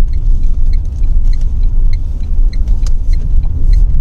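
Tata Nexon 1.2-litre three-cylinder turbo-petrol car on the move, heard from inside the cabin as a steady low rumble. Over it comes a light, regular ticking about three times a second.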